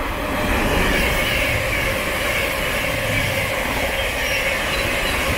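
Thameslink Class 700 electric multiple unit, a 12-car 700/1, passing through the station without stopping: a steady, loud rush of wheel and air noise over a low rumble.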